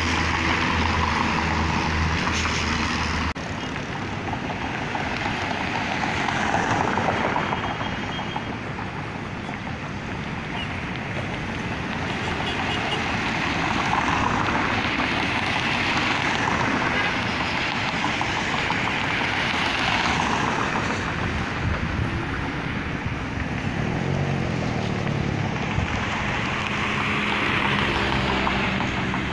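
Road traffic: cars passing one after another, each swelling and fading, about every six seconds. A steady low engine hum in the first seconds cuts off suddenly about three seconds in.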